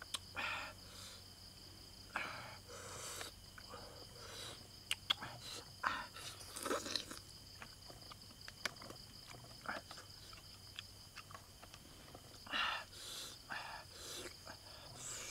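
Close-up eating sounds: chewing and sucking on cooked snail meat picked from the shells, with sharp little clicks of the stick and shells and short bursts of mouth noise. Insects trill steadily in the background.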